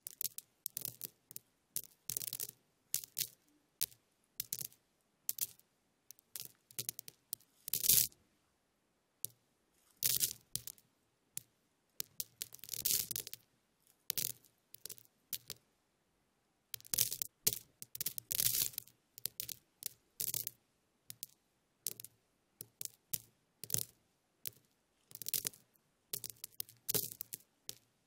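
Crackle-and-rustle sound effect: irregular clusters of small crackles, snaps and rustles, some sharper and louder than others, broken by short pauses. One silent stretch of more than a second comes a little past the middle.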